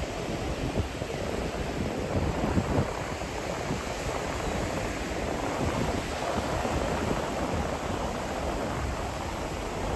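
Wind buffeting the microphone over a steady wash of Caribbean surf at rising tide.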